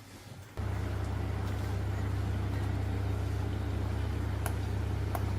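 Electric motor of a restored ceiling fan switched on: a steady mains hum starts suddenly about half a second in and holds. Two light clicks come near the end.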